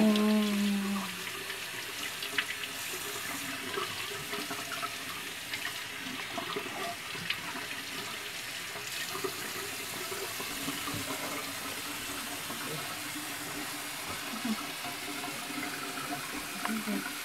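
Water running steadily from a sink faucet, pouring over a newborn's head as her hair is rinsed.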